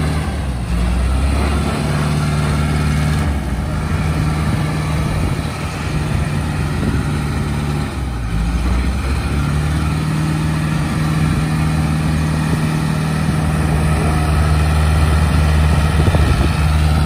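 Diesel engine of an Escorts Hydra 14 pick-and-carry crane running under load as it crawls through mud. The engine note drops back briefly twice, then holds steady.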